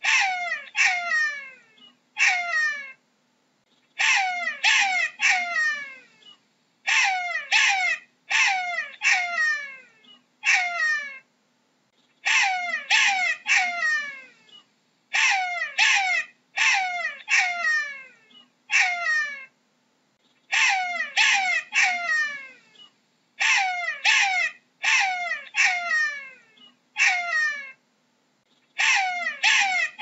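Jackal calling: a run of short, falling yelps in quick clusters of two to four, a new cluster every two to three seconds.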